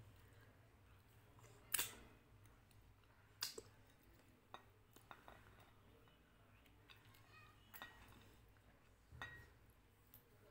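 A few light clinks and knocks of a glass serving bowl against a ceramic plate and table as dal is served onto rice, the sharpest about two seconds in, between stretches of near silence.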